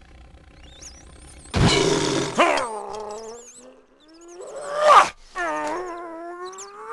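Wordless vocal cries of a cartoon polar bear character. A loud yell about a second and a half in drops into a long, wavering groan, and a second loud cry around five seconds slides into another drawn-out groan that rises toward the end.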